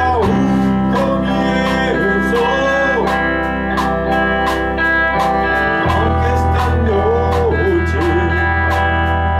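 Rock band playing a song: electric guitar, bass and drums with a steady cymbal beat, and a male lead vocal singing.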